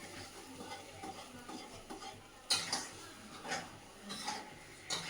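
A spoon stirring and clinking in a cooking pot, with four sharp clinks in the second half.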